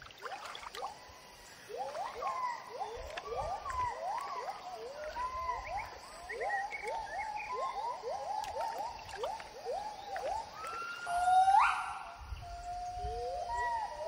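Gibbons calling: a long series of short whoops, each rising in pitch, at about three a second. Near the end they give way to longer, louder held notes that jump sharply up in pitch.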